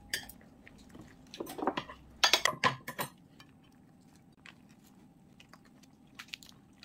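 Sounds of a meal at the table: a cluster of short crackles and clicks about two to three seconds in, then sparse light clicks of dishes and cutlery.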